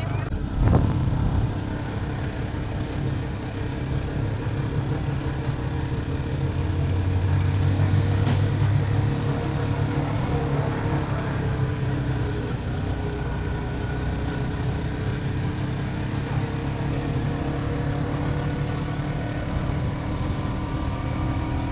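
Engine of a three-wheeled mototaxi running steadily while it drives along a road of concrete paving blocks, with one sharp knock under a second in.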